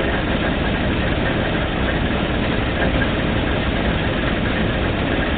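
Failing 1250 drilling rig's engine running steadily.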